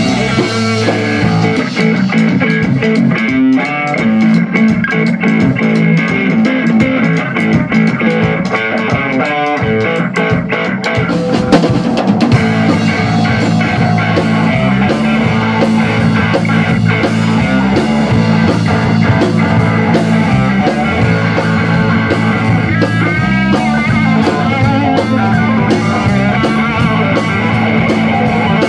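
Live rock band playing: electric guitar over a driving drum kit with sustained low notes underneath.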